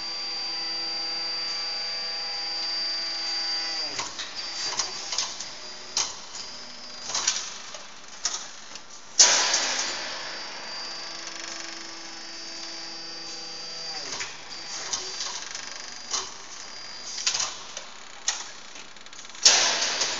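Metal slugs clanking and rattling in the feed hopper and chute of an automatic gear cold-extrusion press line, with a feeder motor humming. The hum winds down and stops about four seconds in, returns, and stops again around fourteen seconds. The loudest metal clanks come about nine seconds in and just before the end.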